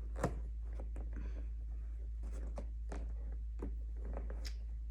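Small irregular clicks and ticks of hands handling and working on a fabric luggage bag under repair, over a steady low hum.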